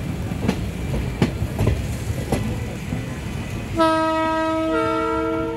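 Train running at speed, heard from a passenger coach, with rumble and clickety-clack knocks from the rails. Near the end a train horn sounds a long blast of two tones, the higher one joining about a second after the first.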